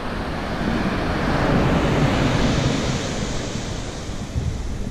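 Ocean surf breaking and washing up the beach, swelling to a peak about two seconds in and then easing, with wind buffeting the microphone.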